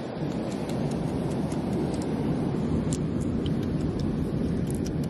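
Wind buffeting the microphone outdoors, a steady low rumble with a few faint ticks in it.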